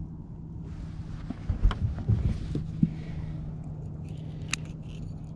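Steady low hum on a bass boat, with a few knocks and clicks on the deck from handling while a small smallmouth bass is reeled in; the knocks cluster about a second and a half to two seconds in.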